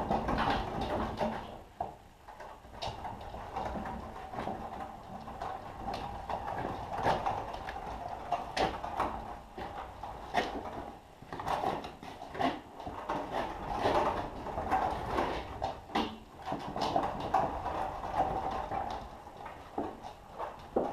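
Manual pallet jack moving a loaded pallet of stacked firewood across a concrete floor: a rolling, scraping sound with many irregular clicks and knocks from the jack and pallet.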